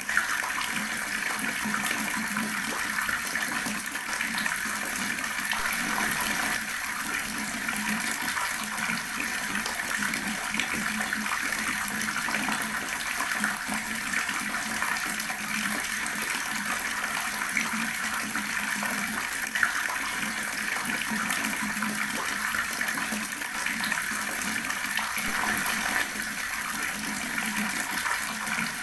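Water pouring from a tap in a steady, unbroken stream, splashing as it lands.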